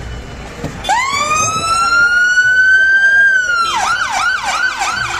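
Emergency vehicle siren sounding a long rising wail, then switching to a fast yelp of about three sweeps a second near the end.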